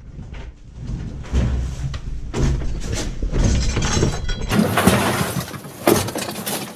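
Repeated knocks, cracks and rattling of wood and door panels as a barricaded apartment door is broken open by hand.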